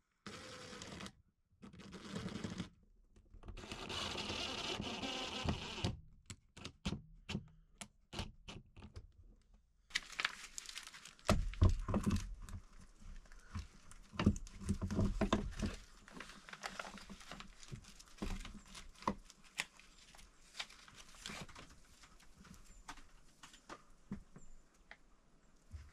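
DeWalt cordless impact driver running in short bursts as it drives screws for a screen bracket into a wooden ceiling. Then scattered clicks, and a run of knocks and thuds as a long projector-screen casing is lifted and seated in its brackets, with lighter clicks after.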